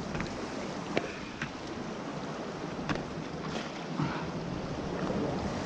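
Steady wash of wind and surf noise, with a few short sharp clicks and knocks through it.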